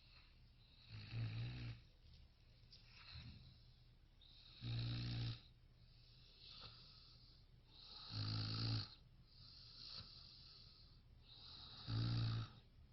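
A sleeper snoring steadily: four loud snores about every three and a half seconds, with fainter breaths between them.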